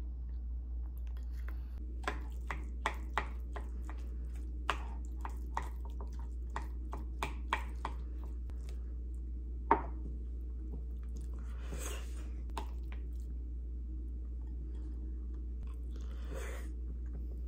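A spoon clicking and scraping against a ceramic bowl as rice is stirred, a string of sharp taps over several seconds, then one louder knock about ten seconds in. After that come the softer sounds of someone chewing a mouthful, over a steady low hum.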